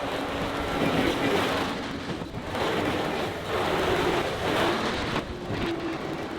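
John Deere 325G compact track loader's diesel engine running under load while it grades dirt, with a steady engine note and a broad rumble that swells and eases every second or two as the machine works.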